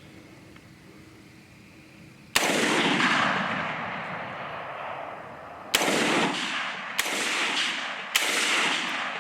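Four rifle shots fired at hogs, the first about two seconds in and the other three about a second apart near the end, each followed by a long rolling echo.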